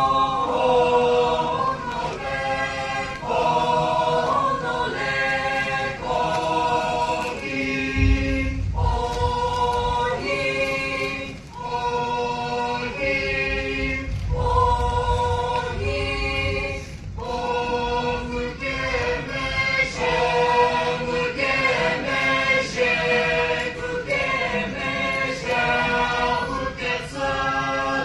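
A group of men and women singing a traditional Angami Naga folk song in unaccompanied harmony, in long held chords, phrase after phrase.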